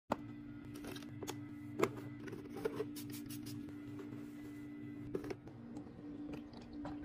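Snacks and drinks being handled and set into a mini fridge: scattered clicks, taps and crinkles of packaging over a steady low hum.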